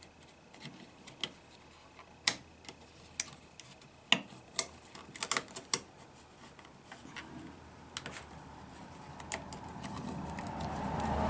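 Irregular small clicks and taps of a plastic retainer and mirror glass being pressed into a chrome side-mirror housing, with a cluster of clicks about four to six seconds in. A broad noise builds near the end.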